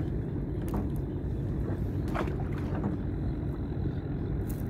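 Gill net hauled by hand into a small wooden boat, with a few light splashes and drips of water off the net over a steady low rumble.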